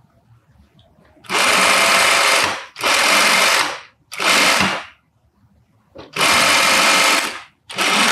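Industrial single-needle sewing machine stitching a seam in short runs: it starts and stops four times, each run lasting about a second, with a fifth run starting near the end.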